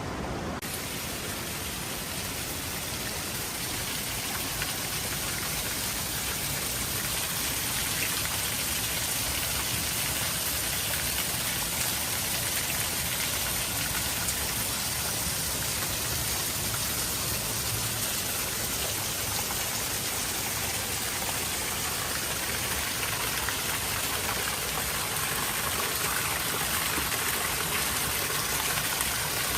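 Steady rain falling as an even hiss, with fine scattered drop sounds. It turns brighter just after the start.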